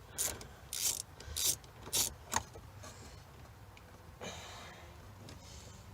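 Hand tools and plastic dashboard parts clicking and rattling as an 80s truck dash is taken apart. There are about five sharp clicks in the first two and a half seconds, then a short scraping rustle about four seconds in.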